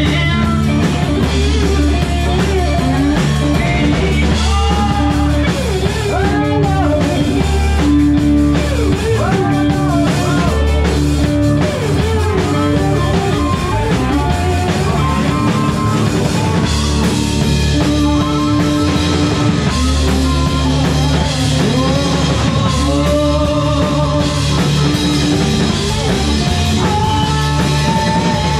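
Live rock band playing: electric guitars, bass and drum kit, with a sung melody over them.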